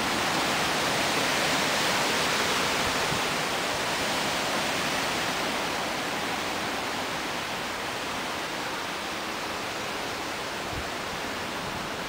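Strong wind blowing, a steady rushing hiss that eases off slightly over the seconds.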